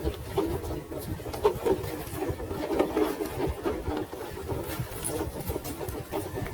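Electric motor and gears of an HB ZP1008 RC off-road 4x4 car whining as it drives, the pitch wavering with the throttle and load. Scattered clicks and crunches of the tyres on rock come through alongside.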